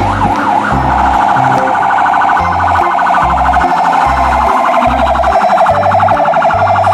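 Electronic fire truck siren. It makes a few quick up-and-down sweeps, then about a second in changes to a rapid warble that holds steady. A regular low beat pulses underneath.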